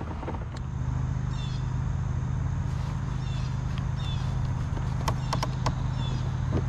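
A steady low hum, with a few short bird chirps and a quick cluster of sharp clicks about five seconds in.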